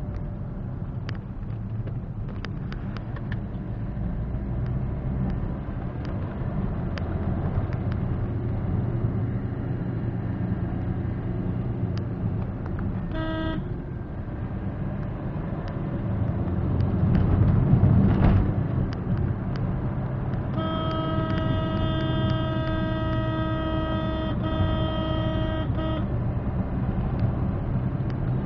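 Engine and tyre rumble inside a moving Maruti Suzuki Swift's cabin. A short horn toot comes a little under halfway through, then an oncoming bus passes with a swelling and fading rush. A long steady horn blast lasts several seconds with one brief break.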